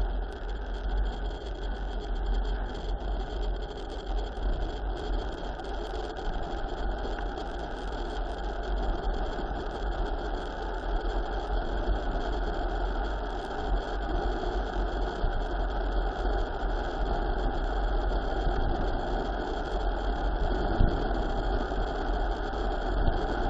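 Steady rushing noise with a strong low rumble: wind over the microphone of a camera riding on a mountain bike at speed downhill.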